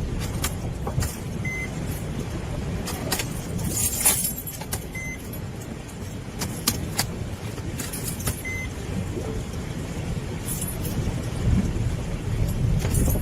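Delivery van driving, a steady low engine and road rumble heard from inside the cab, with many small clicks and rattles and a short high beep about every three and a half seconds.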